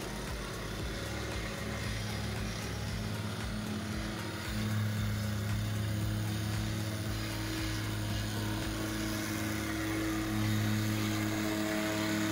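Petrol plate compactor running and vibrating as it compacts a crushed-stone hardcore sub-base, with a steady engine note over a fast low pulsing. It gets louder about four and a half seconds in and again near the end.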